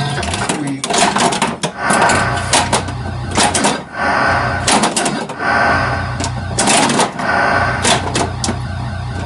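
1982 Bally Vector pinball machine in play: sharp, irregular solenoid knocks from flippers and bumpers over the machine's continuous pulsing electronic sound effects.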